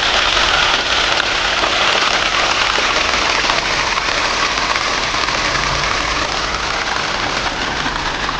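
Steady rush of moving water: an even, loud hiss that does not let up.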